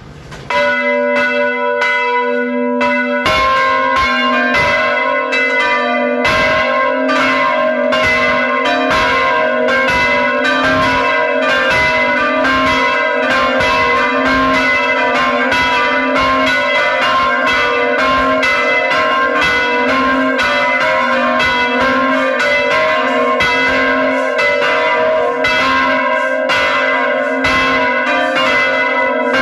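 Several church bells rung by hand with ropes, pealing in quick overlapping strokes at several pitches. The ringing starts about half a second in and grows fuller about three seconds in.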